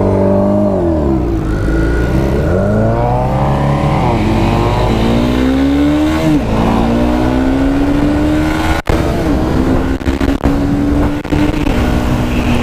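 Motorcycle engine pulling away and accelerating, its pitch rising through the gears with shifts about four and six seconds in, then holding fairly steady.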